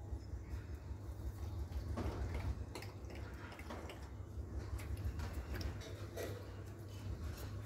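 Doberman lapping water from a steel bowl: irregular wet clicks and small splashes over a steady low rumble.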